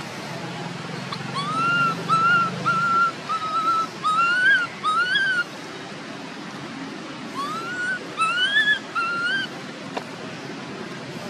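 Baby macaque crying: a run of short, high-pitched whistled cries, each rising and falling, then a second shorter run a couple of seconds later.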